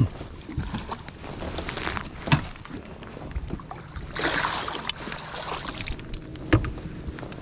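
A hooked bass splashing at the surface beside the boat as it is scooped into a landing net, the splashing about four seconds in. A few sharp knocks come before and after it.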